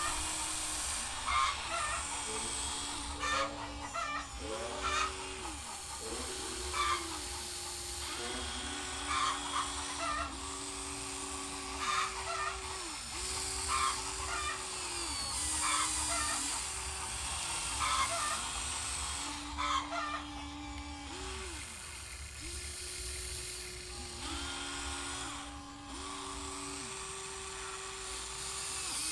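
Whine of a Huina 1594 RC excavator's electric hydraulic pump motor, stepping up and down in pitch every second or two as the boom, arm and bucket are worked. Chickens cluck in the background.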